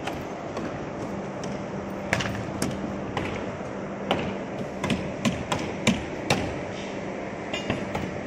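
Construction work on a formwork deck: a dozen or so sharp, irregular taps and clicks, loudest around the middle, over a steady background hum.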